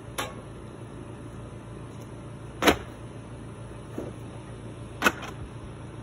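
Roofing work on a shingled roof: four sharp knocks at irregular intervals, the loudest about two and a half seconds in and just after five seconds, over a steady low hum.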